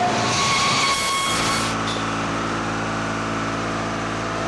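A rushing hiss lasting about a second and a half that cuts off suddenly, then a steady machine-like hum.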